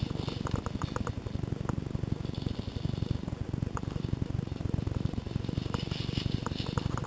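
Movement noise from a camera worn by someone running through woodland: a continuous low rumble of the microphone being jostled and buffeted, with scattered small clicks and rustles from gear and dry leaves underfoot.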